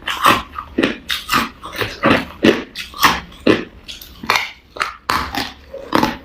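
Crushed ice being crunched between teeth up close, a rapid string of sharp crunches at about two a second.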